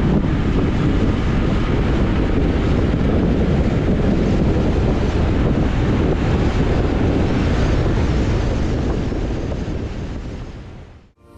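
Steady rumble of road and wind noise from a moving car. It fades out about a second before the end.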